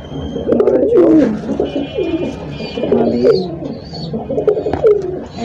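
Domestic high-flyer pigeons cooing, several low, gliding coos overlapping without a break.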